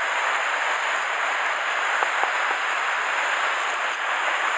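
Steady rushing of a mountain stream, with a few faint crackles of dry leaf litter underfoot around two seconds in.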